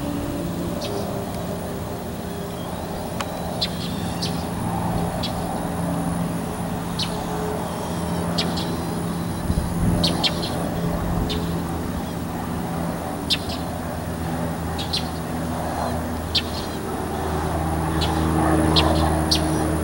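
Steady propeller drone of a single-engine high-wing light airplane flying overhead, growing a little louder near the end. Birds chirp in short, scattered calls throughout.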